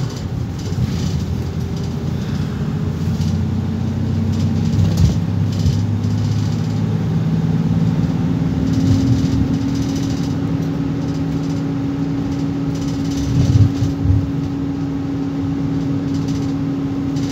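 Engine and road noise inside a moving vehicle, a steady low hum that rises slightly in pitch about eight seconds in.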